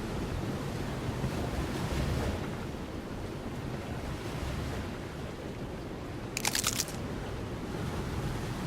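A steady outdoor rushing noise, like wind buffeting the microphone or surf, with a brief high, rapid rattling burst about six and a half seconds in.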